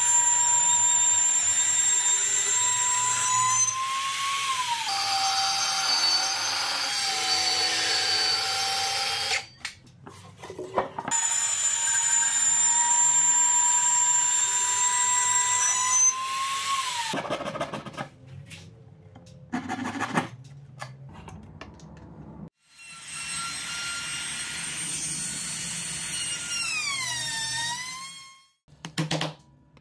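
Electric trim router cutting grooves in a pine board: a loud steady high whine that drops in pitch as the bit takes the cut, in long passes with short gaps and some knocks between them. Near the end the router winds down, falling in pitch, and a few sharp chisel taps follow.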